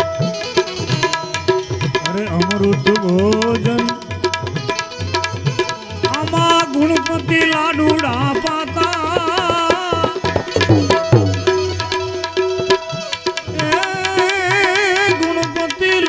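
Instrumental interlude of devotional bhajan music: tabla playing a steady rhythm under a sustained melody line that wavers in pitch.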